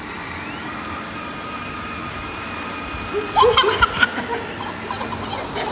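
Robot vacuum cleaner running with a steady high whine. About three seconds in, a young child lets out a second of loud, high-pitched squeals.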